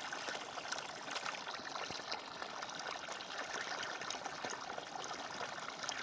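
Irrigation water pouring from a pipe outlet into a shallow, flooded rice paddy, splashing steadily.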